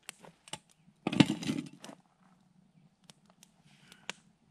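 Wood campfire crackling with scattered sharp pops, and a louder scuffing rustle lasting about a second, starting about a second in.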